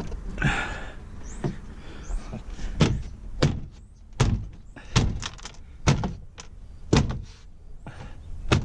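A pickup truck's interior door panel being struck by hand to seat its clips into the door, giving a run of sharp knocks about one every second from roughly a third of the way in, with softer rattling handling of the panel before them.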